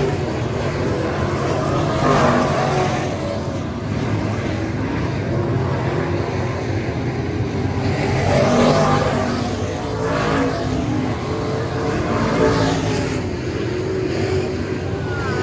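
Dirt-track race cars' engines running hard around the oval, the sound swelling as cars pass about two seconds in and again three times in the second half.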